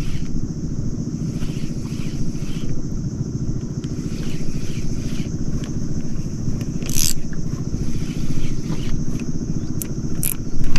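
A small boat engine running steadily with a fast, even low pulse. A few short scrapes and clicks come over it, the sharpest about seven seconds in.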